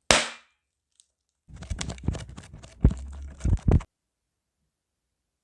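Slime being squeezed and pressed by hand: a sudden sound at the start, then a couple of seconds of sticky crackling with several loud pops near the end.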